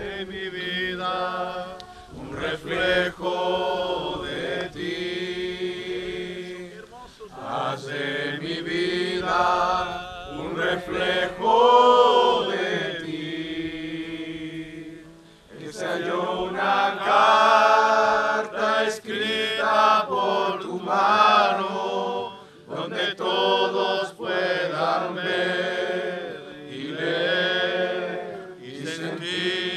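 A congregation singing a Spanish praise song together, with a short break between lines about halfway through.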